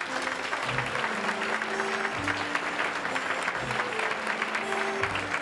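Studio audience applauding a guest's entrance, with music playing underneath.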